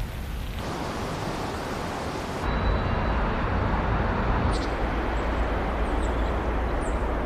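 Steady outdoor noise with a low rumble, changing abruptly about half a second in and again about two and a half seconds in, when the rumble grows louder.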